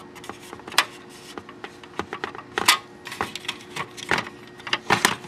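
Sharp clicks and knocks of the HP LaserJet 3800's laser scanner assembly and its housing being prised apart and lifted out by hand, loudest about two and a half seconds in and again near the end.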